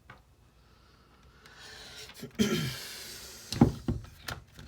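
A breathy exhale with a short grunt, then a few sharp clicks and knocks of the old Black & Decker drill's plastic housing parts being fitted back together.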